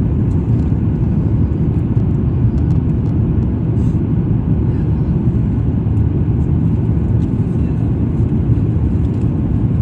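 Steady low rumble of a Boeing 737 MAX 9 airliner on approach, its engines and the airflow heard from inside the cabin.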